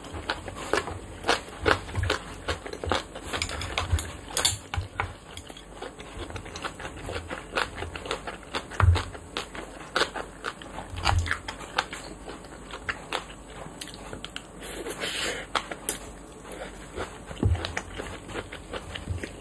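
Close-miked eating sounds: chewing and mouth noises, with chopsticks and a spoon clicking and scraping against wooden bowls of rice and stew. Irregular quick clicks throughout, with a few soft low thumps.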